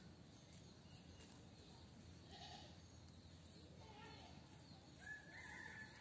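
Near silence: faint outdoor background hum with a few faint, brief calls, one about two and a half seconds in and more near the end.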